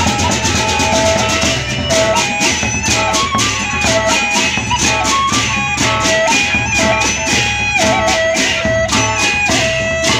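Gendang beleq ensemble playing: a bamboo suling flute carries a held, ornamented melody over large double-headed drums and a fast, steady clashing of small hand cymbals.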